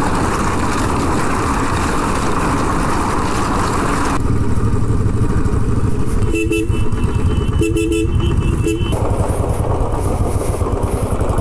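Motorcycle engine running as the bike is ridden. A vehicle horn honks briefly about six and a half seconds in, then again in a longer, broken honk about eight seconds in.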